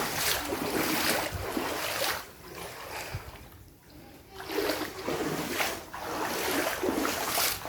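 Footsteps wading through shin-deep floodwater, a splash with each step, about two steps a second, with a pause of about two seconds partway through.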